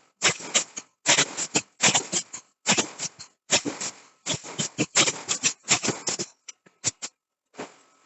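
Forging blows on steel: sharp knocks come in quick clusters, a cluster about every 0.8 s, then thin to a few scattered knocks near the end.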